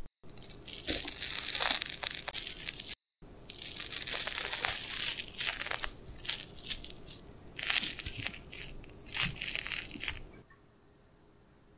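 Chopsticks pressing into and tearing through a fluffy soufflé omelette: the airy egg and its browned skin give way with a soft, irregular crackling and tearing that comes in uneven spells and stops shortly before the end.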